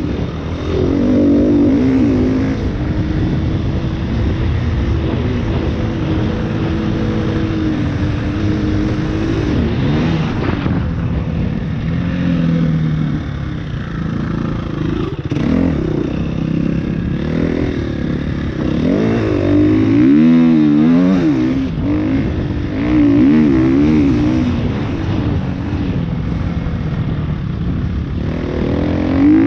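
KTM 350 EXC-F's single-cylinder four-stroke engine being ridden hard, its pitch rising and falling with the throttle and gear changes. Quick up-and-down revs come about two-thirds of the way through.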